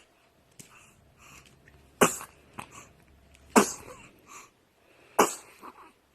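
A baby sneezing three times, each a short sharp burst, about a second and a half apart, with faint small sounds in between.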